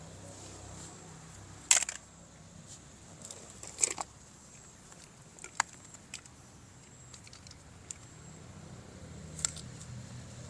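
A few sharp plastic clicks and taps, loudest about two and four seconds in, with smaller ones later, over a faint low hum: hard plastic toy parts being handled.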